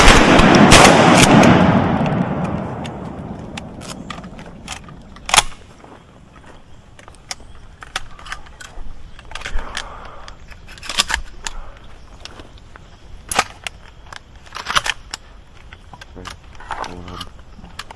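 Shotgun blasts at incoming ducks: two loud shots in quick succession at the start, rolling away in a long echo over about three seconds, and another single shot about five seconds in. Scattered fainter clicks and knocks follow.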